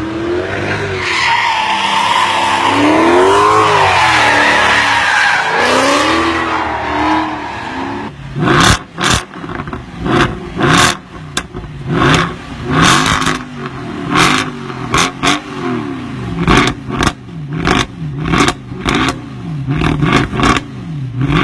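Mercedes C63 AMG V8 exhaust revving hard, the engine note sweeping up and down under a screeching hiss for the first several seconds. After about eight seconds it turns to a quick run of short rev blips, many with a sharp crack.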